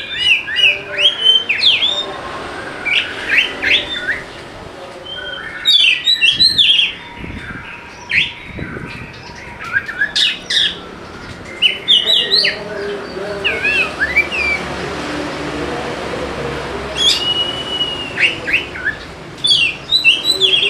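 Oriental magpie-robin singing in bursts of quick, varied chirps and whistled phrases, with short pauses between them, and one long steady whistled note late on.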